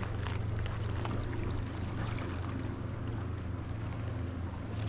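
Motorboat engine running steadily out on the lake, a low continuous drone.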